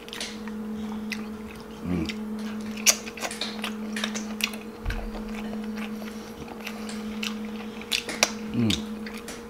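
Close-up eating of a seafood boil by hand: wet chewing and smacking with scattered small clicks and cracks of shells being handled. A steady low hum runs underneath, and a brief murmured 'mm' comes about two seconds in and again near the end.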